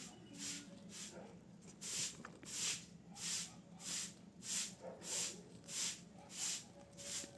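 Dry mud being crushed and crumbled, giving a regular gritty hiss about every two-thirds of a second.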